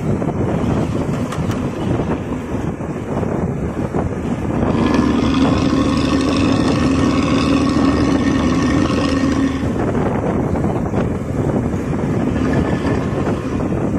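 Road traffic rumbling, with wind buffeting the microphone. About five seconds in, a vehicle horn sounds one long steady blast for about five seconds.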